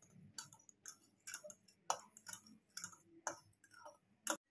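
Steel spoon clinking against a glass bowl while beating a raw egg mixture, in quick irregular ticks about three a second.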